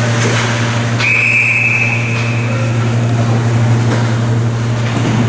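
A hockey referee's whistle blown once, a single steady high tone lasting about a second, starting about a second in, signalling a stoppage in play. A steady low hum runs underneath.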